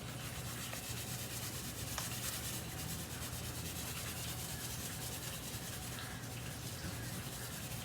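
Faint, steady rubbing and scattering of ground coffee being spread on carpet, over a constant low hum.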